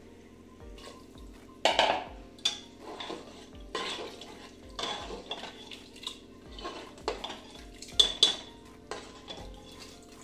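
Steel ladle stirring bean curry in an aluminium pressure cooker, knocking and scraping against the pot's sides in a series of irregular clinks, loudest about two seconds in and again about eight seconds in.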